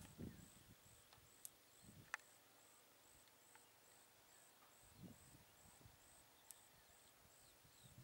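Near silence: a faint high chirp repeating about twice a second, a few small clicks, and a couple of soft low rumbles. The tractor's engine is not clearly heard.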